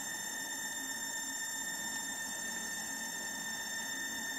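Steady electrical whine: several constant high tones over a faint low hum and hiss, unchanging throughout.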